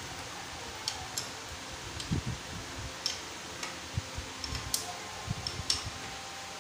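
Spanner and oil drain bolt on a Yamaha YBR-Z engine being screwed in and tightened: scattered light metal clicks and a few low knocks, irregularly spaced, over a steady hiss.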